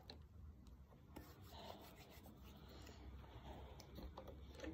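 Faint rubbing with a few light ticks, near silence overall: hands being rubbed together to spread hand sanitizer.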